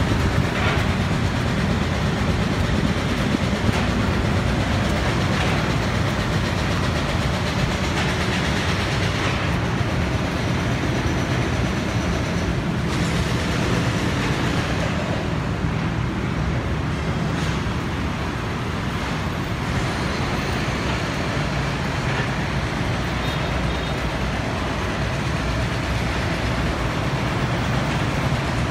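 Steady low rumble of busy road traffic.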